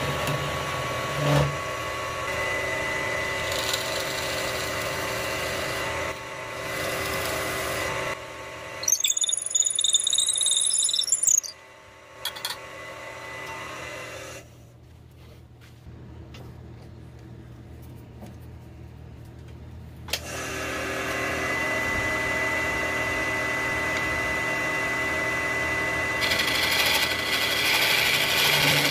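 Wood lathe motor running with a steady hum while a gouge and then a hollowing tool cut into a spinning maple burl, scraping and hissing against the wood. About a third of the way in there is a brief wavering high squeal. After it the sound drops much quieter for about six seconds, then the lathe hum and cutting come back.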